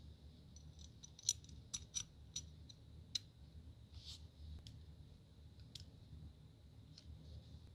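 Light metallic clicks and clinks from a pencil sharpener's spiral steel cutting blade and cutter frame being handled and turned in the fingers. A quick run of sharp ticks comes in the first few seconds, then a few scattered ones, over a faint steady hiss.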